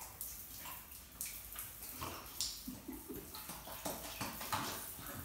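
Shower water spraying and splashing onto a tiled shower floor, with irregular splashes as a Great Dane puppy plays in the spray.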